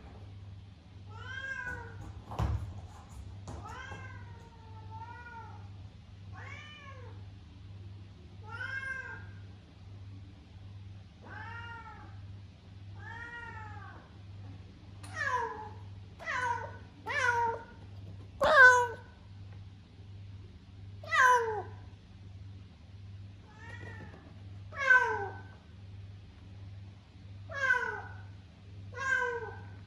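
Domestic cat meowing repeatedly, about twenty separate meows, each rising and falling, louder and closer together from about halfway. A single sharp knock about two and a half seconds in, over a faint steady low hum.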